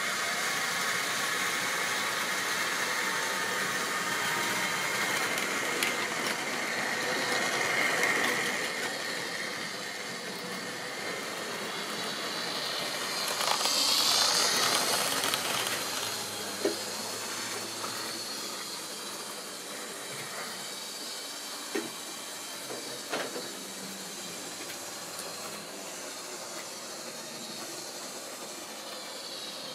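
Model railway trains running on sectional track: the whine of small electric motors and the rumble of wheels, swelling as a coach train passes close by about halfway through, then dying down. A few sharp clicks come later on.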